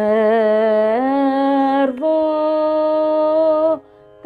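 A woman singing a Carnatic geetam in raga Malahari solo, on long held vowels: a wavering note with gamaka, a step up about a second in, then a long steady note that stops near the end. A faint steady drone sounds underneath.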